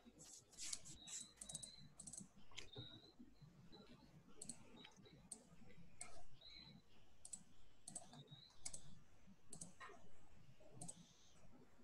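Faint, irregular clicking: a dozen or so sharp clicks at uneven intervals, some followed by a short high tone.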